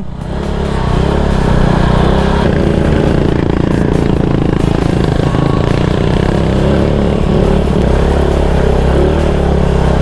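Motorcycle engine pulling away and climbing under steady throttle, building over the first second and then running at an even, strong level.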